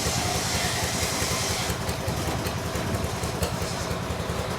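An engine running steadily at idle, with an even low rapid pulsing.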